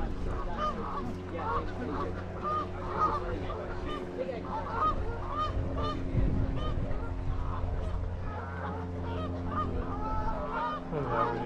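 A flock of waterfowl calling, many short honking calls from several birds overlapping, over a steady low hum.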